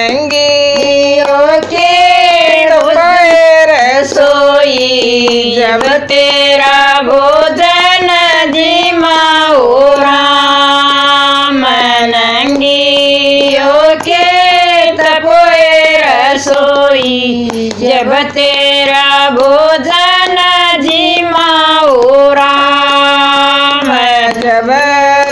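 Women singing a Haryanvi devotional bhajan in long held notes that bend up and down.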